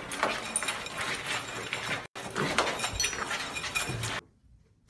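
Two pigs eating dry food from a ceramic bowl: a busy crackle of crunching and clicking as they chew and nose the bowl, broken by a brief dropout about two seconds in. It cuts off about four seconds in, leaving near silence.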